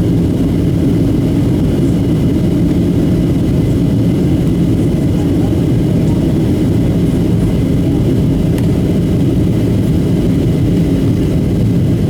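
Steady low drone of a Boeing 737-700 in flight on approach, its engines and rushing air heard from inside the cabin.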